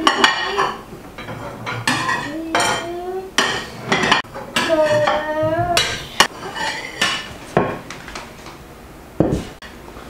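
Ceramic dinner plates clinking and ringing as they are lifted off a stack and set down on one another, a dozen or so knocks at an uneven pace.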